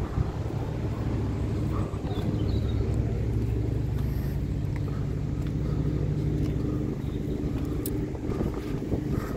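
A motor vehicle's engine running with a steady low hum that eases off slightly about seven seconds in.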